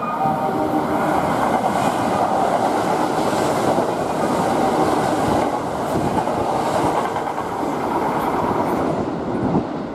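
Kintetsu 21000 series Urban Liner Plus limited express running through the station at speed without stopping: a loud steady rush of wheels on rail with the clatter of rail joints, easing off near the end.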